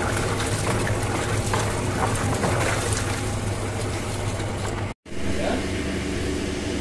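Tap water pours into a basin of soaked yellow split pulses while a hand swishes them through the water, over a steady low hum. The water sound cuts off abruptly about five seconds in, leaving only the hum.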